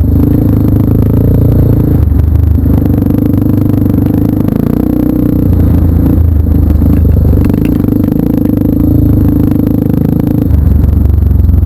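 Trail motorcycle engine running under way, its pitch stepping up and down every few seconds with throttle changes, over a steady clatter.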